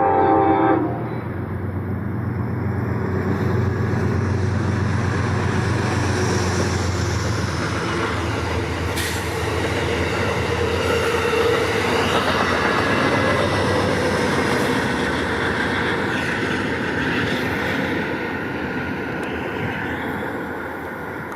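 A diesel passenger train's horn sounds one short blast as a warning to work equipment on the adjacent track, then the train passes at speed: a low diesel engine hum under the rush of the coaches and the clicking of wheels over the rails, easing off near the end.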